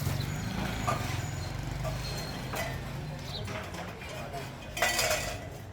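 Three sharp metal knocks, irregularly spaced, the last about five seconds in and the loudest, over a steady low machine hum in a kettle-making workshop.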